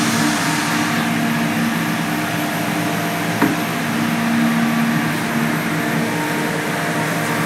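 10 kVA offline UPS inverter running: a steady electrical hum with several held tones under an even whir from its cooling fan. A single short click about three and a half seconds in.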